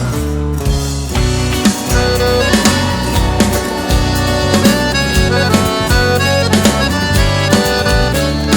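Live band playing the instrumental intro of a sertanejo song: bass, drum kit with a steady beat, and a lead melody instrument carrying the tune.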